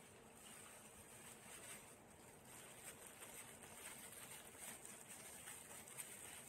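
Near silence: faint steady hiss of room tone, with a few soft ticks, the clearest about six seconds in.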